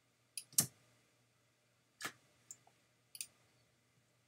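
About six sharp clicks of a computer mouse and keyboard at work, spaced irregularly, the loudest about half a second in.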